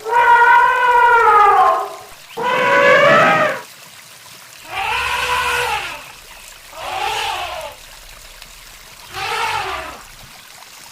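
A farm animal calling five times with drawn-out, pitched cries that rise and fall. The first two calls are the loudest and longest, and the last three are shorter and fainter.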